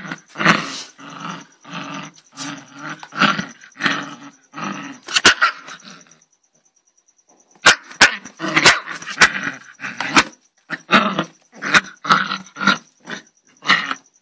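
Small dog growling and barking angrily in short, loud bursts, about two a second, with sharp clicks among them, pausing for about a second and a half around the middle.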